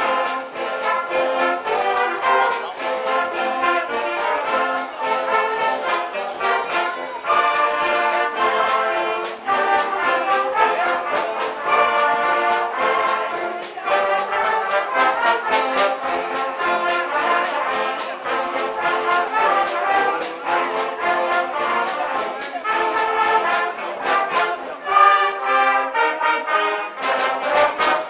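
Wind band of brass, saxophones, clarinets and drum kit playing a lively piece over a steady drum beat.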